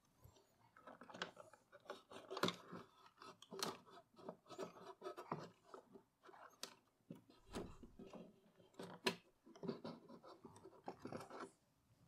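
Braun T1000CD radio chassis being worked loose and lifted out of its metal case by hand: faint, irregular scraping and rubbing with scattered clicks and knocks of metal against metal, and a low bump a little past halfway.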